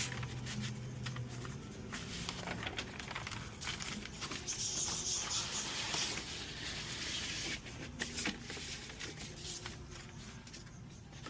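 Handling noise: rustling and scattered light clicks and knocks, with a steady low hum for the first second and a half and a hiss for about three seconds midway.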